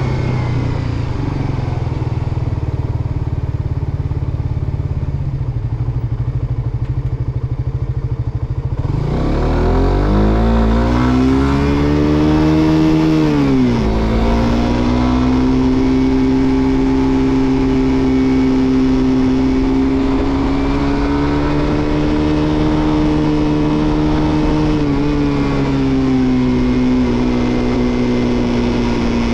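Suzuki GSX-R150's single-cylinder four-stroke engine idling steadily, then pulling away about nine seconds in with a rising engine note. It shifts up at about fourteen seconds and runs at a steady cruising speed.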